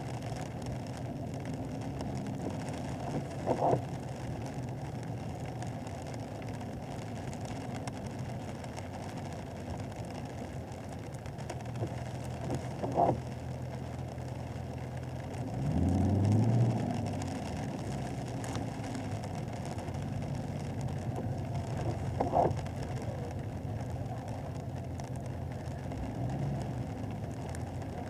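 Chevrolet Camaro SS 1LE's 6.2-litre V8 running steadily near idle while the car rolls at walking pace, heard from inside the cabin. About halfway through, a short rise in the engine note is the loudest moment. Three faint brief knocks come about nine seconds apart.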